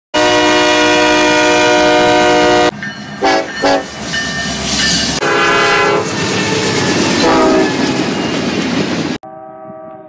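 Diesel locomotive air horn blowing one long loud blast, then several shorter blasts, over the rumble and clatter of a freight train passing close by. About nine seconds in the sound cuts off abruptly to a much fainter, distant horn.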